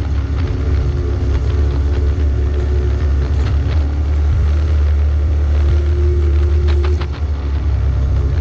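Off-road vehicle engine running steadily at low trail speed with a heavy low rumble, and a few sharp clacks around the middle and a quick cluster of them near the end.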